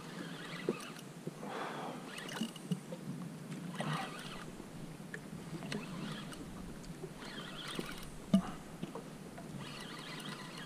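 Small waves lapping and splashing against a plastic kayak hull, swelling every second or two, with a few light clicks and knocks.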